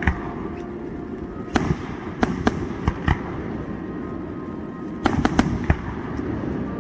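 Aerial firework shells bursting in a display, a string of sharp bangs at uneven intervals, with a close cluster of several about five seconds in.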